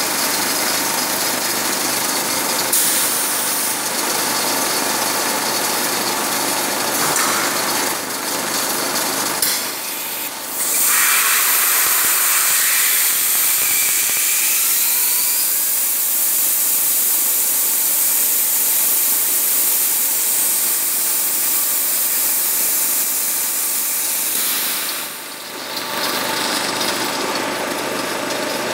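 Accumulator blow moulding machine running with a steady mechanical noise. About ten seconds in, a loud high hiss starts, holds for about fifteen seconds, then drops away.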